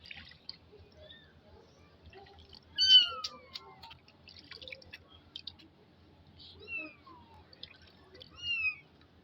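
Kitten meowing several times in high, falling cries, the loudest about three seconds in, with light water drips and splashes.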